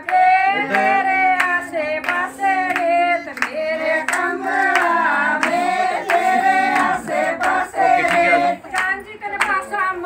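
A group of women singing a song together, with steady hand-clapping in time.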